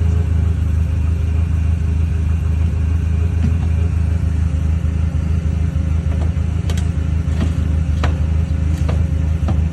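Forklift engine running steadily with a low hum, holding a refrigerator raised off its pallet. Several short knocks come in the second half.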